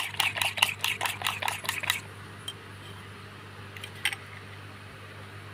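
Eggs being beaten with a metal utensil in a ceramic bowl: rapid clinks of metal against the bowl, about five a second, that stop about two seconds in. A low steady hum stays underneath, with one more clink later.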